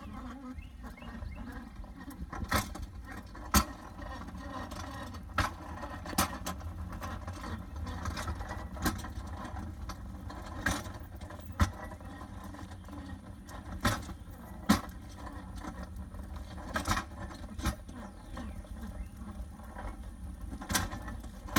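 Hand truck wheels rolling over a concrete sidewalk: a steady low rumble broken by sharp clacks every second or two as the wheels bump over the joints between slabs.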